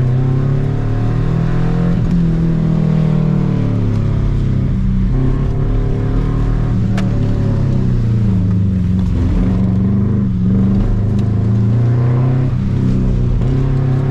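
Subaru Impreza 2.5 RS's flat-four engine being driven hard, its revs rising and falling again and again with throttle and gear changes.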